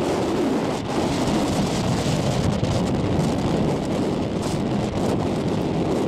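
Strong storm wind buffeting the microphone in a steady rush, over big storm waves breaking against the jetty's rocks.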